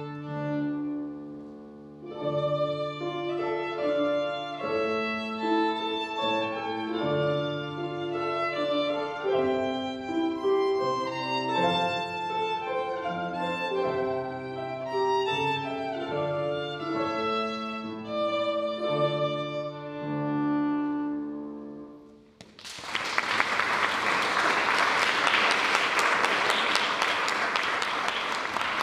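A violin plays a melody over a lower accompaniment; the piece ends about 22 seconds in and the audience breaks into applause.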